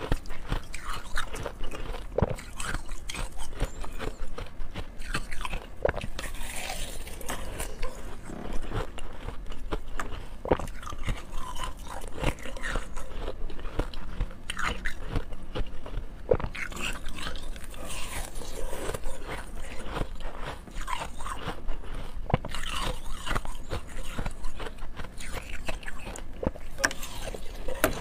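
Frozen slush ice being bitten and chewed close to a lapel microphone: crisp crunching and crackling of the icy crystals between the teeth, in irregular bites throughout.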